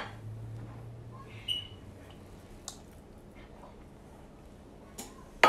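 A few light clicks and taps of a tuna can and utensil against a plastic mixing bowl, over a low steady hum that stops about a second and a half in.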